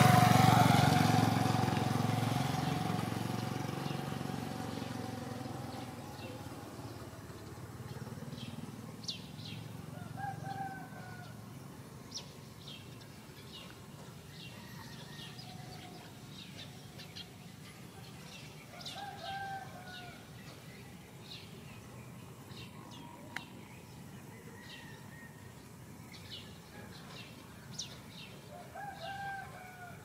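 A motorbike passes close by, its engine loudest at the start and fading away over several seconds. After that come scattered short bird chirps and a distant rooster crowing three times, about ten seconds apart.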